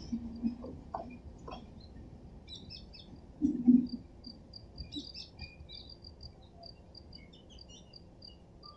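Wheels of a departing passenger train clicking over the rail joints, the clatter fading away within the first second and a half. Then repeated high chirps go on, with a brief low thump about three and a half seconds in.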